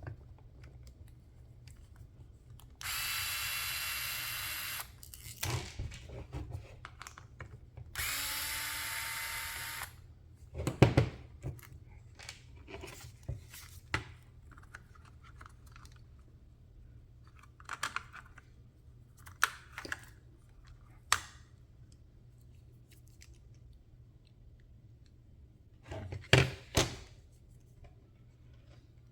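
Powered screwdriver motor running in two bursts of about two seconds each, driving out small screws. After them come scattered clicks and knocks of small plastic and metal parts being handled.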